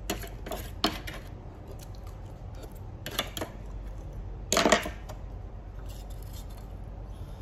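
Spoon clinking and scraping against a small stainless steel bowl, several separate strokes, the loudest about four and a half seconds in.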